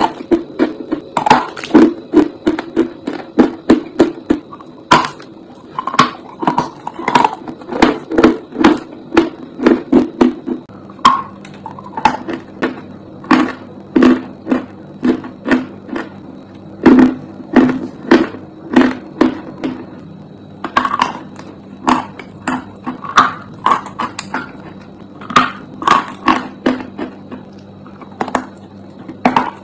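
Dry chalk being bitten and chewed close to the microphone: quick runs of crisp crunches, several a second, broken by short pauses between bites.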